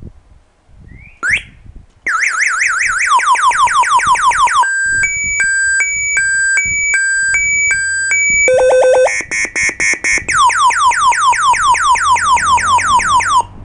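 Motorcycle alarm siren cycling through its tones: a short rising chirp, then a fast warble, repeated falling sweeps, a slow two-tone hi-lo, rapid beeps, and falling sweeps again before it cuts off suddenly near the end.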